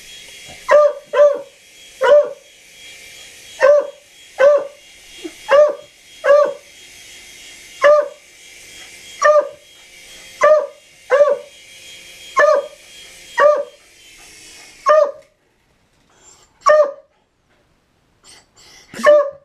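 Dog barking repeatedly, about sixteen sharp barks roughly a second apart, at a small toy helicopter whose high motor whine runs under the barks and cuts off suddenly about fifteen seconds in. A few more barks follow once the whine has stopped.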